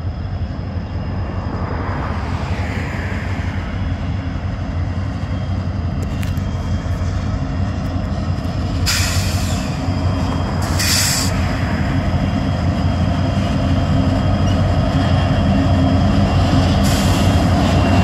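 Canadian Pacific EMD SD60 diesel-electric locomotives approaching and passing, their engines running with a steady low rumble that grows louder as the lead unit draws near. A few short hisses break in about halfway through and near the end.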